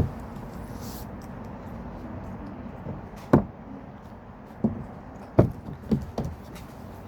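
Several separate light knocks and taps, the loudest about three and a half seconds in and a quick cluster between about five and six seconds in, over a steady low background noise.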